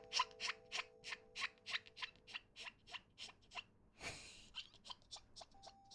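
Quiet, quick clicking at a steady beat of about three or four clicks a second, over soft held tones, with a short hiss about four seconds in.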